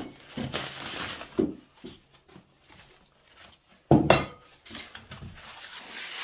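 Packing paper and foam rustling as clay-thrower parts are unwrapped, with one loud metallic clank about four seconds in as the thrower's black metal frame piece is handled and set down on the table, ringing briefly.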